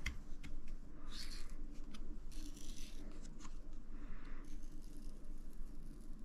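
Clicks, rattles and short scrapes of a buffer-tube stock being slid onto and fitted to an airsoft shotgun, with three brief scraping rustles about one, two and a half and four seconds in.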